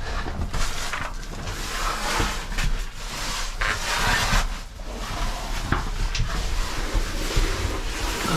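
Cavers moving through a rocky cave passage: irregular scraping, scuffing and knocking of bodies and gear against rock.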